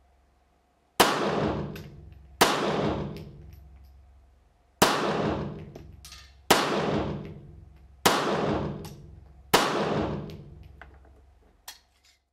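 Browning Buck Mark .22 LR pistol firing Federal Gold Medal target rounds: six shots spaced unevenly, one to two and a half seconds apart. Each is a sharp crack followed by a long echoing decay in the indoor range. A small click follows near the end.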